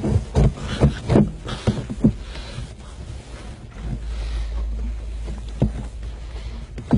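A few muffled thumps and scuffs at first, then a steady low wind rumble on the microphone from about four seconds in, with one more knock near the end.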